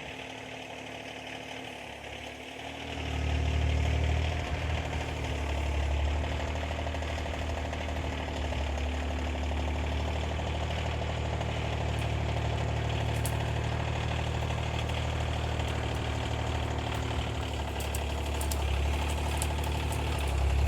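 Kioti CK2620 compact tractor's diesel engine running steadily at a low idle, growing louder about three seconds in and then holding even.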